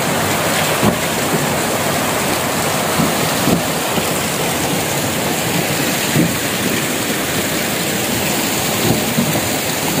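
Shallow stream rushing over rocks: a steady, loud hiss of running water.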